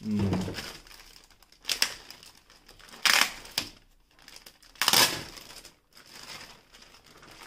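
Clear plastic bag crinkling and rustling in short bursts as it is pulled and worked off a toy by hand, with the loudest bursts about three and five seconds in.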